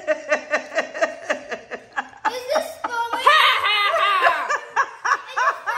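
Girls laughing: a quick run of short ha-ha pulses, about five a second, then a louder, longer laugh about three seconds in, followed by more short bursts.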